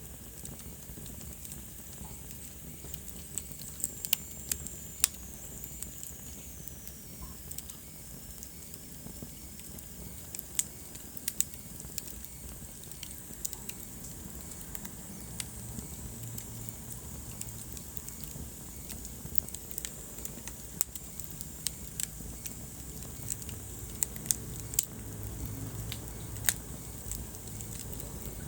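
Wood fire burning in a fireplace: a steady low rumble of flame with irregular sharp crackles and pops scattered throughout. About four seconds in, a faint high whistle slides downward for a few seconds.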